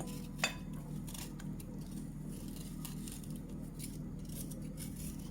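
Short, irregular scraping strokes as the skin is scraped off a hard, frozen ginger root, with a sharper click about half a second in. A steady low hum runs underneath.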